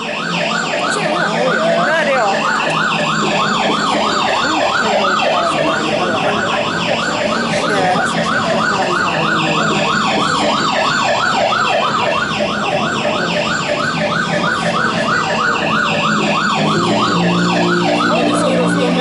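Electronic fire-brigade siren in a fast yelp, its pitch sweeping up and down about five times a second.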